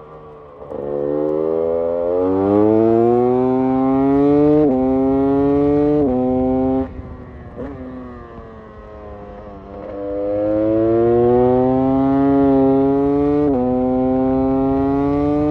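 GasGas EC 300 single-cylinder two-stroke enduro engine accelerating hard through the gears: the pitch climbs, drops sharply at each upshift, and the throttle is shut about seven seconds in. A second pull starts about ten seconds in and climbs again through another shift.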